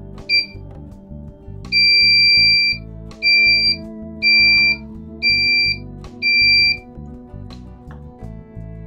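Electronic hourglass kit's buzzer beeping its time-up alarm: one short beep, then a long beep of about a second and four shorter beeps, all at the same high pitch, over background music.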